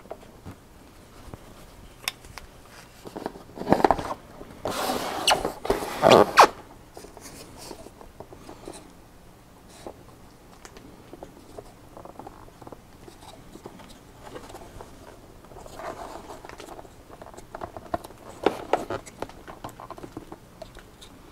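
Handling noise as a graphics card with a water block fitted is turned over and laid on a cardboard box: rustling and scraping bursts about four to six seconds in and again near the end, with scattered light clicks and knocks between.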